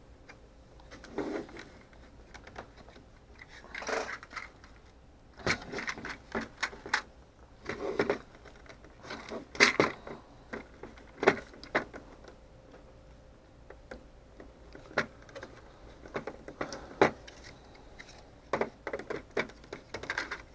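Hard clear plastic model-engine parts clicking, knocking and scraping against each other as they are handled and pressed together by hand, in irregular clusters of sharp clicks. A piece is being forced that will not seat because it is on backwards.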